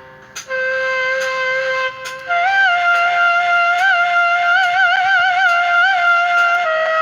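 Arranger keyboard playing a flute-like wind voice in a slow melodic line. A held note begins about half a second in, then a higher note is decorated with quick trills and turns, stepping down to a lower note near the end.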